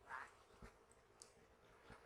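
Near silence, with a faint, brief fragment of a voice at the start and a few faint ticks.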